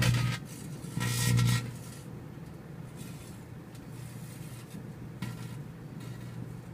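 Microwave oven running with a steady low hum while the Intel CPU fan and its metal heatsink burn inside, broken by loud, harsh buzzing bursts of arcing: one at the start, a longer one about a second in, and a weaker one near the end.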